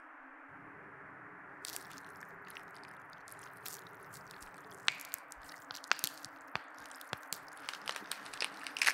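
A steady hiss, then from about two seconds in, irregular crunches and sharp snaps like biting and chewing, with a few louder snaps towards the middle and near the end.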